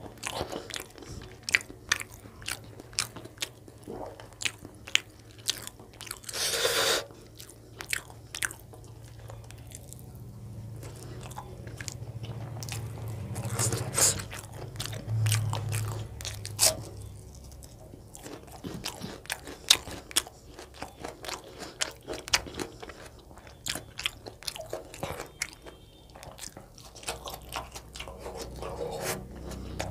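Close-miked chewing and crunching as a man eats chicken gizzard curry with roti by hand, with many sharp wet mouth clicks and smacks.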